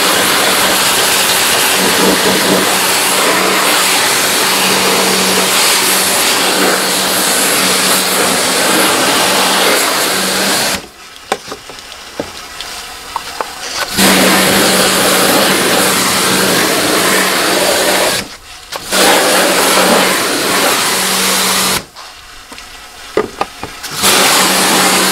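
Electric pressure washer running and spraying, a steady motor hum under a loud hiss of water. It stops abruptly three times, for about three seconds near the middle, briefly a little later and for about two seconds near the end, then starts again.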